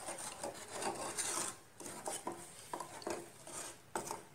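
Wooden spatula scraping and rubbing against a metal pan as it stirs lumps of jaggery in water, dissolving the jaggery. It comes as a series of irregular short scrapes.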